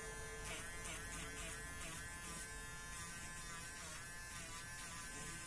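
Small battery-powered electric eraser buzzing steadily, its hum broken by repeated short scrubbing strokes against the charcoal paper about twice a second.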